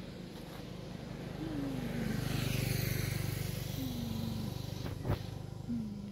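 A motor vehicle passes on the road. Its sound swells to a peak about halfway through and fades again, over a steady low hum. A single sharp knock comes about five seconds in.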